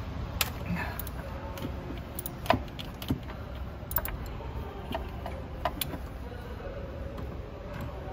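Scattered sharp metallic clicks and clinks of hand tools as a wrench is worked on the 10 mm bolt holding an ignition coil, about ten in eight seconds, irregularly spaced, over a low steady background rumble.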